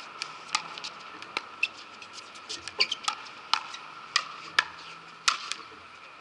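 Pickleball paddles striking a hollow plastic pickleball in a quick back-and-forth rally: sharp pocks, about two a second at the busiest point, with fainter clicks in between.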